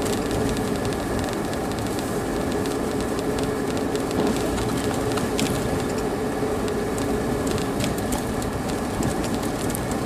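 Steady cabin noise of a vehicle driving on a snow-covered road: an even, low engine and tyre rumble with a faint hum and a few faint ticks.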